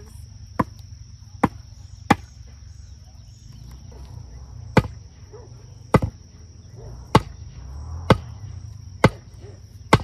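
A tall wooden stake being pounded into the ground with a heavy object struck on its top: nine sharp knocks, spaced about a second apart and unevenly.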